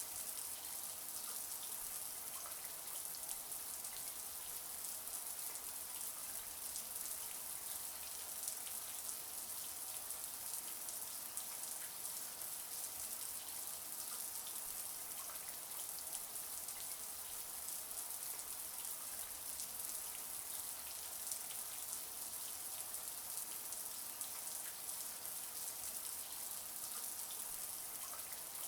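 Shower water running steadily, spray falling in a continuous hiss with fine patter of drops.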